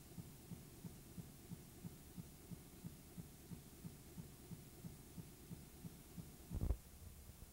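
Faint low thumps about three a second over a low hum, with one louder thud near the end, on a recording whose audio track has cut out.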